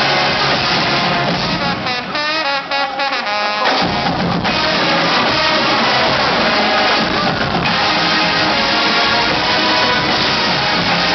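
College marching band playing a rock arrangement, with brass and a drumline with bass drums. About two seconds in the drums and low brass drop out, leaving high wavering brass lines, and the full band comes back in just before four seconds in.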